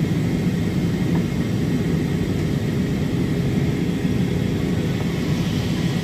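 Steady cabin noise of an Airbus A320 airliner in flight: an even, low rush of engine and airflow noise heard from inside the cabin, with a faint steady high whine.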